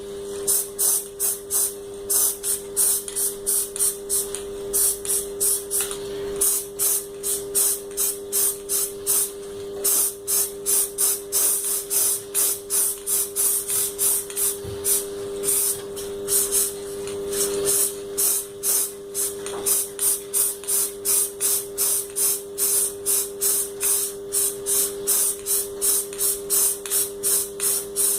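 Aerosol spray paint can hissing in quick short bursts, about two a second, as paint goes onto the glued-on counterweights of an air-conditioner blower wheel. A steady low hum runs underneath.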